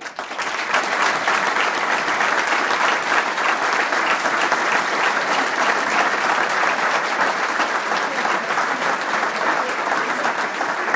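Audience applauding, dense clapping from many hands that breaks out suddenly and keeps up steadily.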